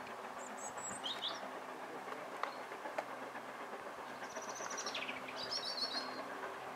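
Steam locomotive approaching along the line, a steady distant running noise slowly growing louder, with small birds chirping several times over it.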